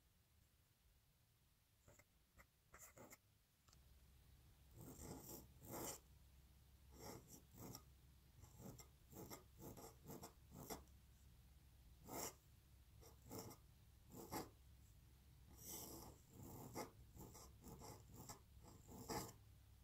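Pointed steel dip-pen nib scratching across paper in many short strokes with brief pauses between them, as cursive letters are written. The scratching starts about two seconds in.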